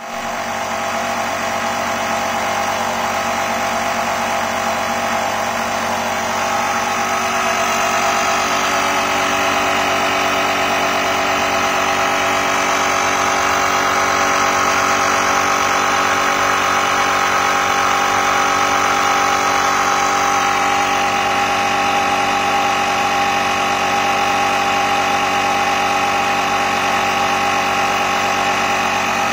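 The air compressor built into a Motomaster Eliminator 1400 booster pack running: a steady mechanical hum that starts at once and holds level throughout.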